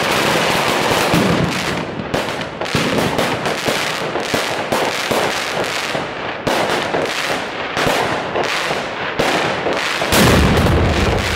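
Fireworks going off in a rapid, continuous string of sharp bangs and crackles, with a heavier boom about ten seconds in.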